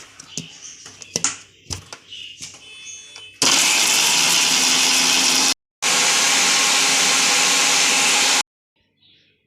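Kitchen mixer grinder pureeing two tomatoes, run in two loud bursts of about two seconds each with a short break between, then cut off sharply. A few clicks and knocks come before the motor starts.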